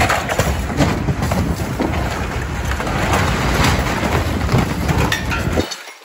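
Excavator demolition grapple tearing apart a brick building: rubble and wood crashing and crackling, with many sharp cracks over a steady low rumble. It cuts off suddenly near the end.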